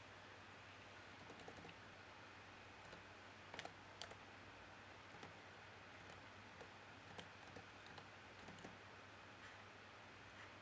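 Faint, scattered clicks of a computer keyboard and mouse, a few in quick little clusters, over a low steady hum.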